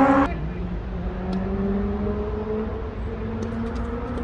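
A motor vehicle's engine accelerating: its rising pitch drops sharply about a quarter second in, as at a gear change, then climbs slowly again. A few faint sharp clicks sound over it, mostly in the second half.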